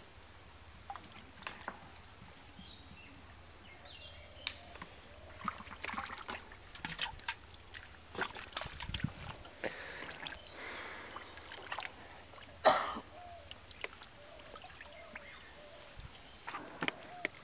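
Hands and feet squelching and splashing in shallow, muddy water while groping for fish, in irregular short bursts, with one sharper, louder splash about two-thirds of the way through.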